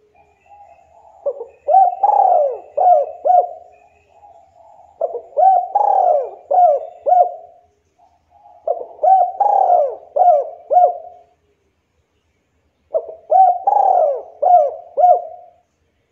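Spotted dove singing its coo song: four phrases about four seconds apart. Each phrase is a soft lead-in coo followed by a loud burst and three or four clipped coos.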